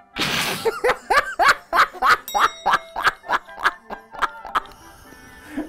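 A man bursts into hearty laughter: a breathy outburst, then a rapid run of 'ha' syllables, about three or four a second, each falling in pitch, that dies away near the end. Background music plays under it.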